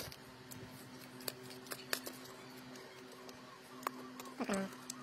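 Scattered light clicks and taps of metal parts being handled: a bicycle chainring and a bolt set against an angle grinder's armature shaft. A steady low hum runs underneath, and a short falling pitched sound comes near the end.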